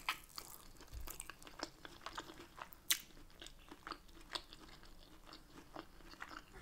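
Close-miked chewing of a mouthful of Yorkshire pudding: soft wet mouth clicks and smacks, with a sharper click at the start and another about three seconds in.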